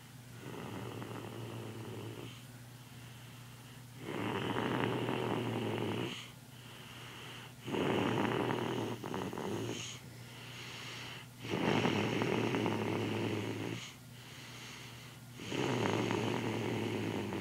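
A child snoring in a steady rhythm: four loud snores about every four seconds, with quieter breaths between them.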